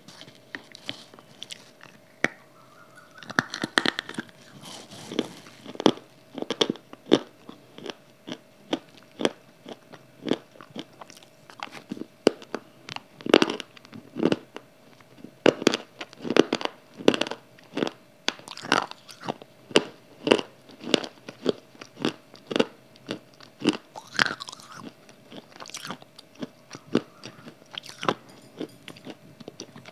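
Close-miked biting and chewing of hard dried clay: sharp crunches and snaps about once or twice a second, with a faint steady hum underneath.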